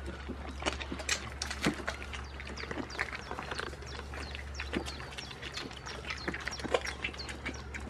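Goats crunching and chewing crisp pieces of red pepper taken from a hand, a quick irregular run of wet snapping crunches over a steady low hum.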